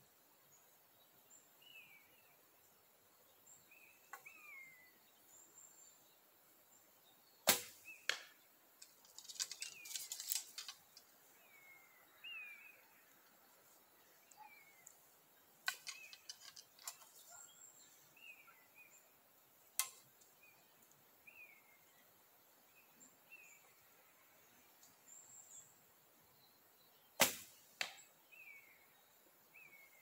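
Bow shooting: three sharp snaps of a bowstring releasing arrows, spread well apart, with clusters of lighter clicks and rattles in between. Faint short falling bird chirps repeat in the background.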